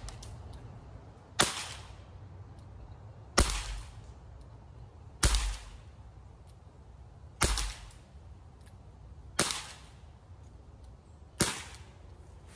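Webley & Scott MK VI .455 replica CO2 pellet revolver firing .177 pellets: six sharp, short shots about two seconds apart, each a crack with a brief tail.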